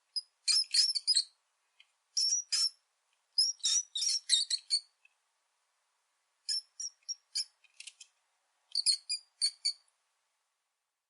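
Rat squeaking: rapid, high-pitched squeaks and chirps in five short clusters, with silent gaps between.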